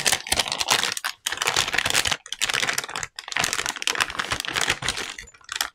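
Metallised anti-static shielding bag crinkling as hands handle it and pull it open, with short breaks about two and three seconds in.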